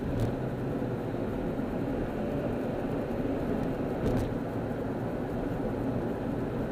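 Steady road and engine noise heard from inside a car cruising at freeway speed: a low rumble with tyre hiss.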